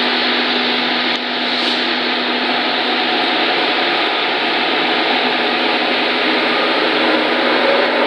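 Class 91 electric locomotive moving off slowly, its blowers and traction equipment making a loud, steady whirring hum with a held note under it. It grows a little louder near the end as the locomotive draws closer.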